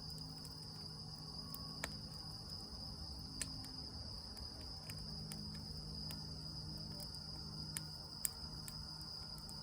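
Wood campfire crackling with a few sharp pops, over a steady high trill of crickets.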